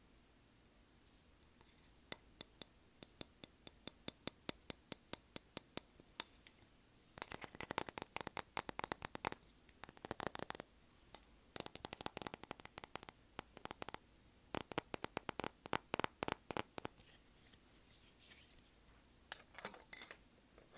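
Fingers tapping on a small souvenir surfboard. Separate taps come a few times a second at first. From about seven seconds in there are fast runs of rapid tapping that stop and start, and the taps thin out near the end.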